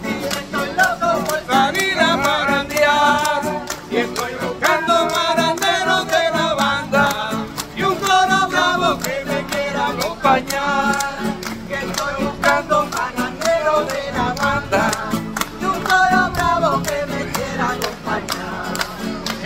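Puerto Rican parranda Christmas music: voices singing in Spanish to strummed acoustic guitars, with hand percussion and clapping keeping a quick steady beat.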